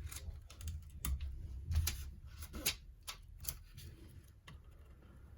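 Irregular small clicks and light taps of plastic, with low handling rumble, as a tight laptop display-cable connector is levered loose.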